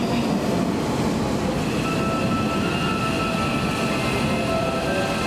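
Hanshin 5500 series commuter train pulling into the station: a steady rumble of the cars rolling in, with a high steady whine joining about two seconds in as it slows.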